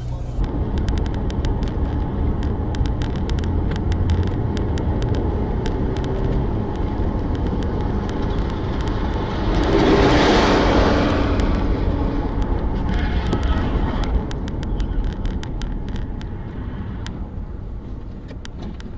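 Steady road and engine rumble of a moving car, with many faint sharp ticks. About ten seconds in, a rushing sound swells up and fades away over a couple of seconds.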